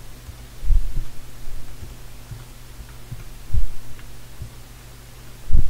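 Computer keyboard being typed on, the keystrokes heard only as dull low thumps at irregular intervals, three of them louder, over a steady low electrical hum.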